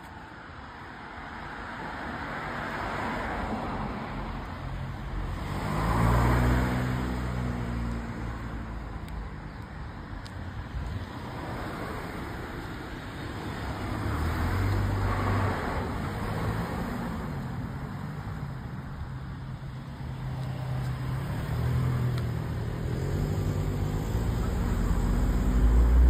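Road traffic: several cars passing one after another, their tyre noise swelling and fading, with engine hum from closer vehicles, loudest about six seconds in and near the end.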